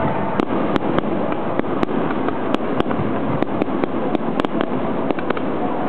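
Aerial firework shells bursting overhead, with many sharp irregular bangs and cracks over a continuous dense din.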